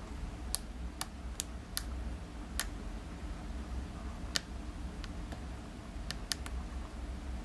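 Sharp, irregular metallic clicks, about ten of them, as Peterson lock picks work the pins inside a Pfaffenhain euro cylinder, over a low steady hum.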